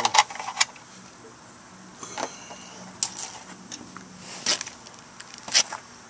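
Coiled air compressor hose dropped and handled on concrete, giving a few scattered clicks and clatters: one cluster at the start, then single ones about two, three, four and a half and five and a half seconds in.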